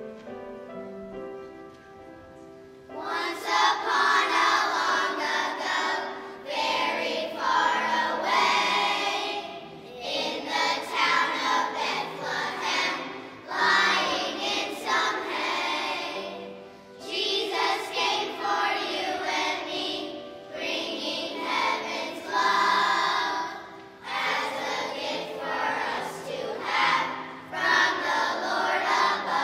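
Children's choir singing in unison with piano accompaniment. A short piano introduction of held notes comes first, and the children's voices come in about three seconds in, singing in phrases.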